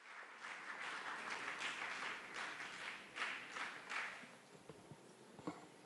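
Audience applause that fades in and dies away about four seconds in, followed by a few faint knocks near the end.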